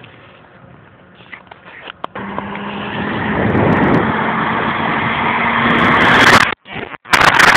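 A BMW 528 and an Audi A4 drag racing at full throttle toward the listener, their engine noise starting about two seconds in and growing steadily louder. Near the end the sound cuts out twice, then comes back as a loud rush as the cars pass close by.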